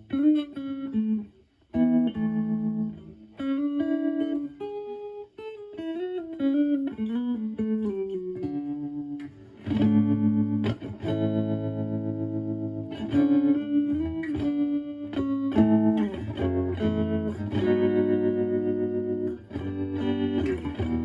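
Clean electric guitar, a Stratocaster with HSH pickups, played through a Joyo JF-09 analog optical tremolo pedal at low intensity into a Marshall Valvestate amp's clean channel, so the volume pulses lightly. Single-note lines give way to sustained chords about ten seconds in.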